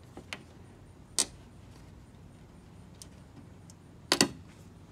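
Scattered sharp clicks and taps from hands and a screwdriver working on a Mustang's rear spoiler: a sharper click about a second in and a louder double click near the end.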